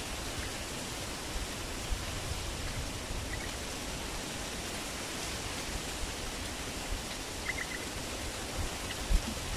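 Steady outdoor background hiss, with a few faint short bird chirps: one about three and a half seconds in and a quick run of three about seven and a half seconds in.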